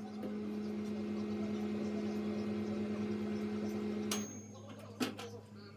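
Microwave oven running with a steady hum for about four seconds, then stopping with a click and a short high tone. Another click follows about a second later.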